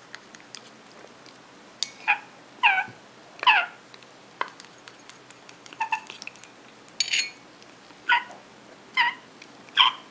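African grey parrot chick giving about eight short, high begging calls while being spoon-fed, with a few faint clicks between them.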